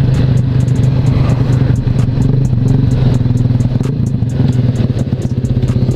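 Sigma 250 sport motorcycle's engine and exhaust running at steady low revs while the bike is ridden along the road, with a fast even exhaust pulse.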